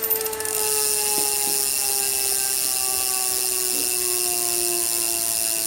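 Wahoo Kickr bike trainer running: a steady whine with a hiss above it, slowly falling in pitch as the flywheel slows, with a few faint ticks.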